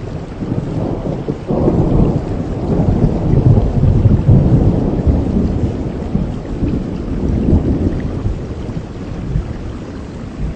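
Heavy rain with a long roll of thunder: a low rumble that swells about a second and a half in and slowly fades away over several seconds.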